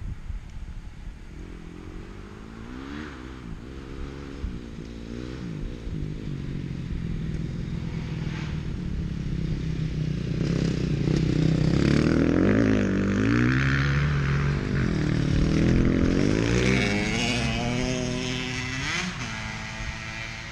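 Dirt bike engines approaching and pulling up close, revving up and down in repeated blips. They grow louder through the middle and ease off near the end.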